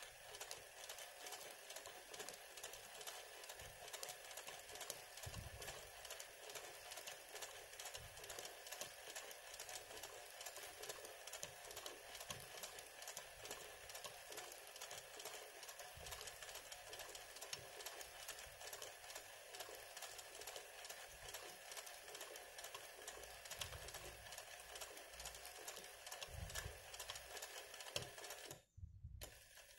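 Sewing machine running steadily in free-motion embroidery, its needle stitching in rapid, even strokes as the hoop is moved by hand. The sound cuts out for a moment near the end.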